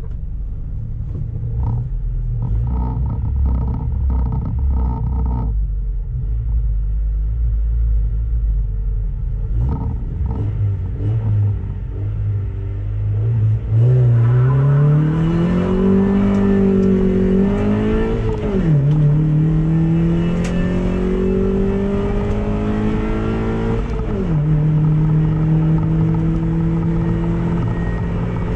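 Car engine heard from inside the cabin: idling with a low rumble at first, then about halfway through the car pulls away, the revs climbing, falling sharply at two upshifts, then holding steady.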